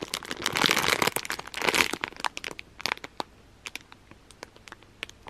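Clear plastic squishy packaging crinkling as it is handled: dense crackling for about the first two seconds, then scattered single crackles that grow sparser toward the end.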